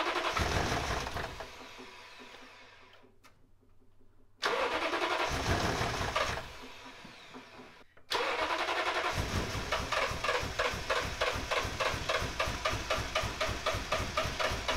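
Starter cranking a Toyota 5.7L i-Force V8 with the circuit opening relay jumped to force power to the fuel pump: three tries. One is already under way at the start and dies away, another starts sharply about four seconds in, and from about eight seconds in there is a long run of even cranking at about four to five beats a second. The engine does not catch.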